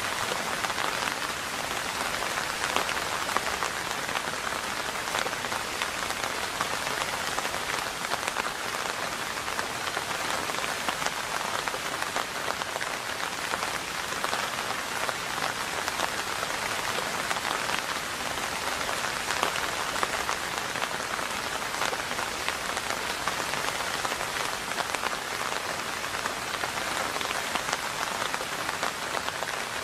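Steady, heavy rain falling on a surface, a dense hiss of countless small drop impacts that holds even throughout.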